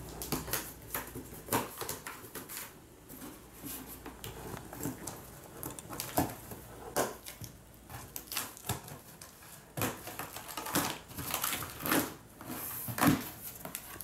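Scissors slitting the packing tape along a cardboard box's seam: a run of irregular crackling snips and scrapes of blade on tape and cardboard. Near the end the cardboard flaps are pulled open, with the loudest crackles.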